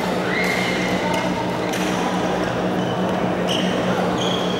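Busy indoor badminton hall: background voices over a steady hum, broken by a few sharp hits and short squeaky tones.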